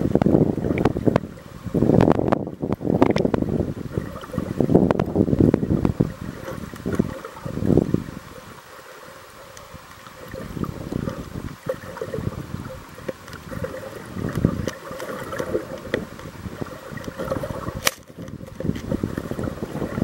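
Muffled water noise picked up by a camera held underwater: irregular surges of low rushing and sloshing, with a lull about eight seconds in.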